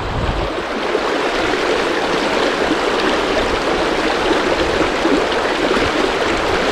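River water rushing steadily, an even, continuous flow.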